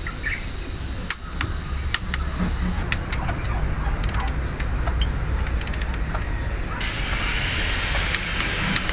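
Torque wrench ratcheting on the cylinder head bolts of an Isuzu 4JG2 diesel during the first 30 ft-lb pass of the tightening sequence. Short runs of fast ratchet ticks are mixed with a few sharp single clicks, over a steady low rumble. A hiss comes in near the end.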